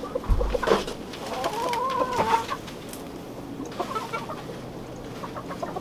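Chickens clucking: one longer, arching call about a second and a half in, then a few short clucks. There is a dull thump at the start.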